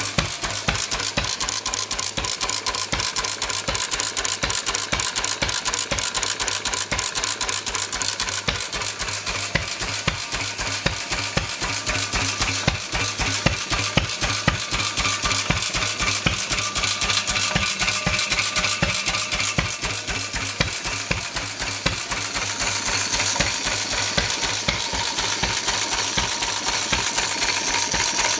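A 4 hp Sundial stationary engine running steadily, its moving parts giving a fast, even metallic clatter.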